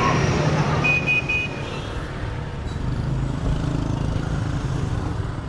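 Busy city street traffic: motor scooters and cars running steadily, with three short high beeps about a second in.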